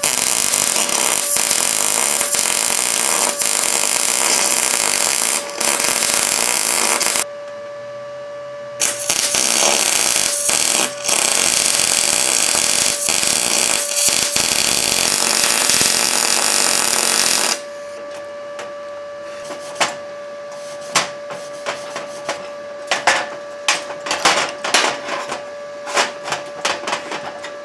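ArcCaptain MIG 200 MIG welder arc welding steel, a steady frying crackle in two long runs of about seven and nine seconds with a short pause between. About two-thirds of the way in the arc stops, leaving a steady hum and scattered metal clicks and knocks as the welded part is handled.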